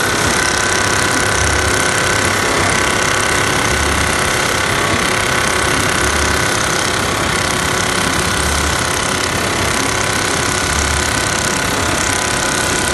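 Automatic bag cutting and stitching machine running: a loud, dense, steady mechanical rattle with a low thump repeating about every two and a half seconds.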